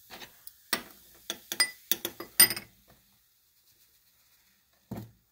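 A quick run of sharp clicks and light clinks as a cardboard box of baking soda is tapped and shaken over a small glass bowl, followed by a pause and one more knock near the end.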